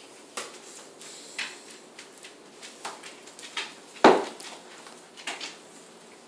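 Dog food bowls being knocked and pushed about by hand, giving a series of short, separate knocks and clatters. The loudest clatter comes about four seconds in.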